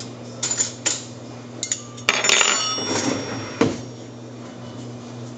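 Kitchen items being handled on a counter: a few sharp clicks, then a louder rattling clatter about two seconds in that rings briefly, and one more knock a second later.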